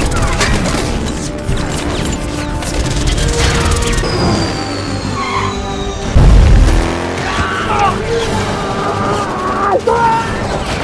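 Film action soundtrack: music over vehicle engine and aircraft noise, with a high falling whine and then a heavy crash-like boom about six seconds in.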